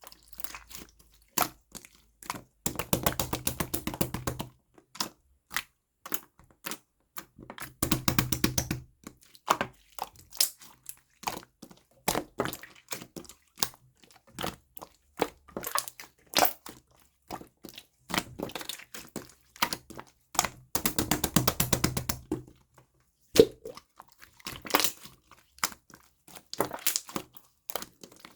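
Jelly-textured glitter slime being squeezed and pressed by hand, giving many small sharp clicks and pops. Three bursts of rapid clicking come about three, eight and twenty-one seconds in.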